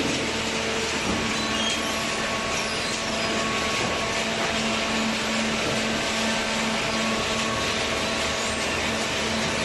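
Hydraulic baler machinery running: a steady mechanical noise with a low hum that drops out briefly and comes back.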